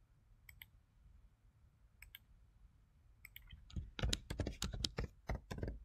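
A few single mouse clicks spaced a second or more apart, then a fast run of computer keyboard keystrokes starting about two-thirds of the way through, as a parameter expression is typed in.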